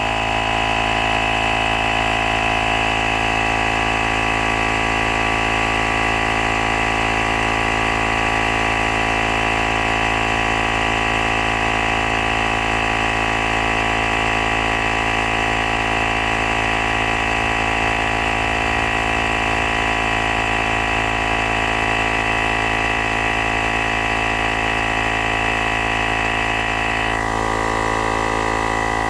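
AmazonBasics portable digital tyre inflator running steadily, its electric air compressor pumping a car tyre up toward a set 32 psi. Its tone changes a little near the end.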